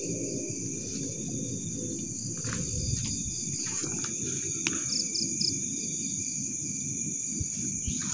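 Crickets and other night insects trilling steadily and high-pitched, with a quick run of three short chirps about five seconds in, over a low background rumble.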